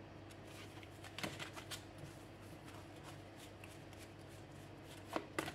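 A deck of oracle cards shuffled by hand, quietly, with soft slipping of card on card and a few light clicks, about a second in and again near the end.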